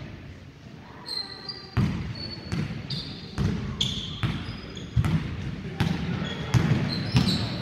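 Basketball being dribbled on a hardwood gym floor, bouncing about every 0.8 seconds from about two seconds in, with sneakers squeaking on the floor in a large hall.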